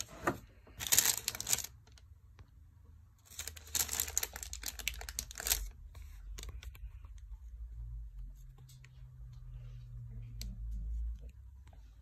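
Crinkling and rustling of a sheet being handled, in two bursts: a short one about a second in and a longer one from about three to five and a half seconds in, followed by faint scattered ticks.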